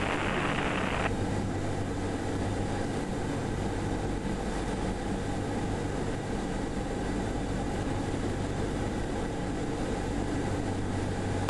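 Cessna 172R's four-cylinder Lycoming engine and propeller droning steadily in flight. A band of hiss cuts off suddenly about a second in.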